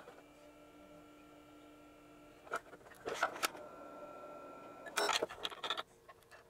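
Hands working on a sheet-metal chassis while fitting a new cooling fan and its wiring: three short bursts of clicks and light metallic clatter, about two and a half, three, and five seconds in.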